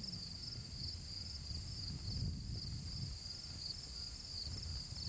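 Crickets chirping in a steady pulsing train of high chirps, about four or five a second, over a low rumble.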